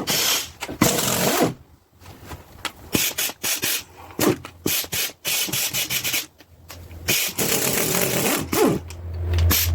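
Impact wrench run in several short bursts, about a second each, backing out the cylinder head bolts of a small block Chevy 350.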